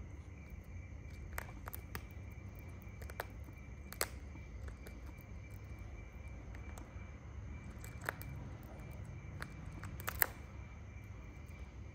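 Shikra tearing flesh from a pigeon carcass with its beak: scattered sharp clicks and snips, the loudest about four, eight and ten seconds in, over a steady low hum and a faint, steady high tone.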